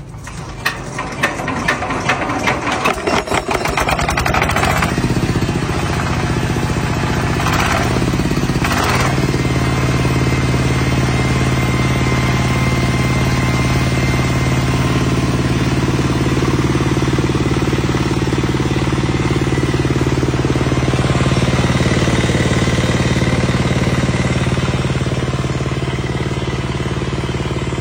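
Engine-driven machine starting up: a fast clatter that builds over the first few seconds, two short surges about eight and nine seconds in, then a steady running hum.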